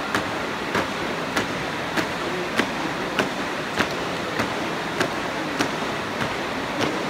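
Marching troop's shoes stamping in unison on a wooden sports-court floor, a steady beat of about one stamp every 0.6 seconds, over a constant hall hiss.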